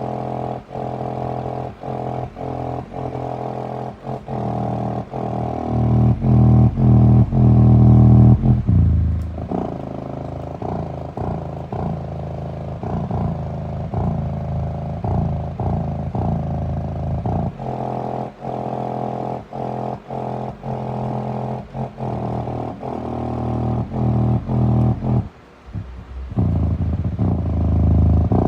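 Bass-heavy music played loud through an 8-inch Skar subwoofer driven by a Taramps 3K amplifier, in a pulsing rhythm. The bass swells to its loudest for a few seconds about a quarter of the way in and cuts out briefly near the end.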